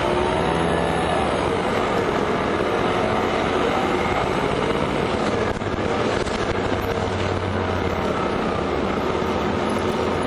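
Orion 05.501 city bus under way: steady engine and road noise, with a brief dip about five and a half seconds in.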